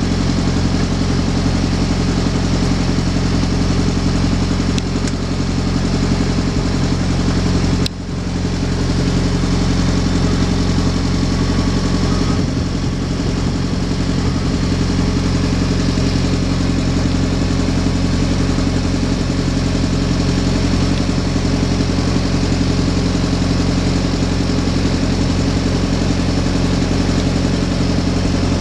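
Slow boat's engine running steadily while under way, with a short break about eight seconds in.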